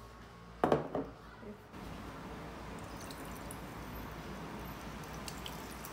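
A glass knock under a second in, then pour-over coffee poured steadily from a glass carafe into a glass mug.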